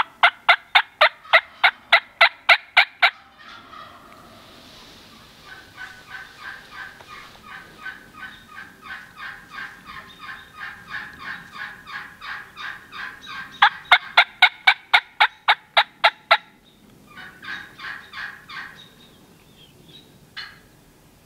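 Turkey calling in runs of rapid, evenly spaced notes, about four a second. A loud run lasts about three seconds, a softer and longer run follows, then a second loud run comes about 14 seconds in, with a short soft run after it.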